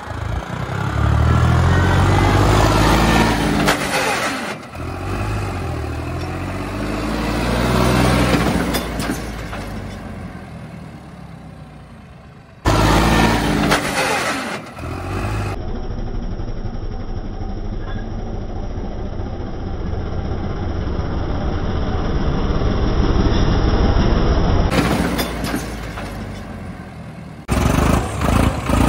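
Farmtrac 60 diesel tractor engine running and revving, its pitch repeatedly rising and falling. The sound changes abruptly several times as shots are cut together, with a steadier, even engine note in the second half.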